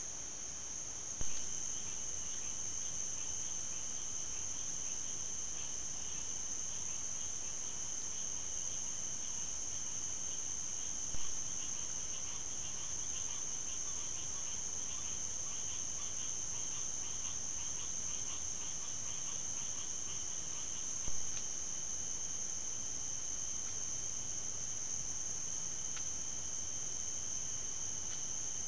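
Night insect chorus: a steady, high-pitched trilling with a fainter pulsing chirp beneath it. A short click sounds about every ten seconds.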